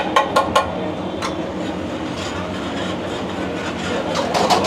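A metal spatula clacking and scraping on a flat griddle as pav bhaji is cooked: a few quick clacks at the start, one about a second in and more near the end, over a steady kitchen hum.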